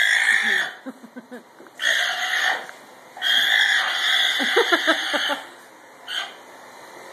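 Alpaca screaming in protest at being restrained and hauled by the neck: three long, shrill screams and a short fourth one near the end.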